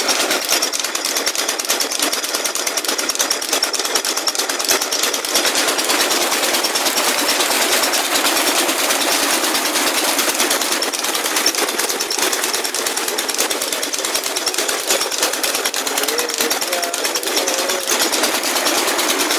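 Engine-driven tubewell pump running with a rapid, steady knocking beat, and water gushing hard from the outlet pipe into the channel.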